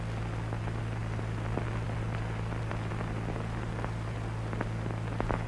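Background noise of an old film soundtrack: a steady low hum under hiss, with scattered faint clicks and pops.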